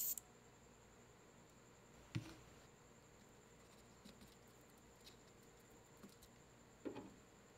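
Near-silent room with a few small handling noises: light taps and scrapes as a plastic glue bottle is squeezed over cork bark and a small metal spatula works soil into it, with a sharp tap about two seconds in and a duller knock near the end. A faint steady high-pitched whine sits underneath.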